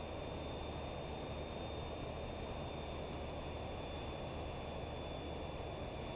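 Single-engine Piper Cherokee's engine and propeller, a steady drone heard from inside the cabin, with faint steady high tones over it.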